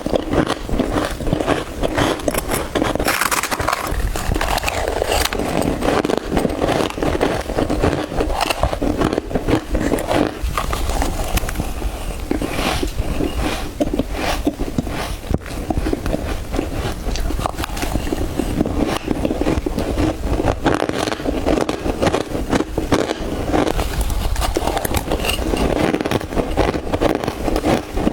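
Soft freezer frost being bitten and chewed close to the microphone: a dense, unbroken run of crisp crunches and crackles.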